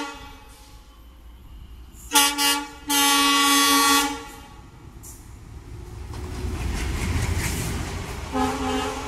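WDG3A ALCO diesel locomotive sounding its horn: two short toots about two seconds in, then a steady blast of about a second. Then the rumble of the locomotive and train grows louder as it approaches and passes, with another horn blast near the end.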